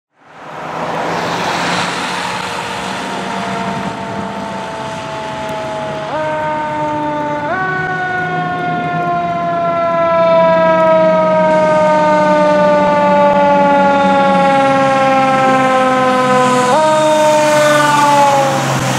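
Fire engine siren wailing. Its pitch falls slowly and steadily and is pushed sharply back up three times, about six, seven and a half and seventeen seconds in, while the truck's engine runs underneath as it approaches and passes.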